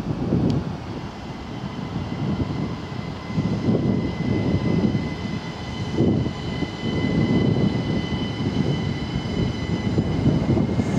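Belgian SNCB AM08 Desiro electric multiple unit approaching on a far track: a steady, high-pitched whine of several tones from its electric traction equipment over a low, uneven rumble.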